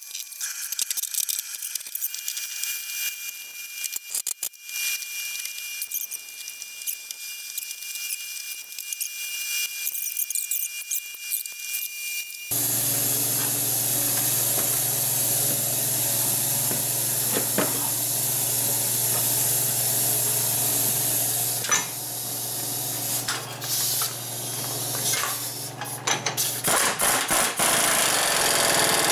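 Clinks and clatter of tools and parts during reassembly of the front hub and brakes. About halfway through this gives way to a steady low hum with hiss. Near the end, a pneumatic impact wrench hammers in short bursts as it runs down the front axle hub nut.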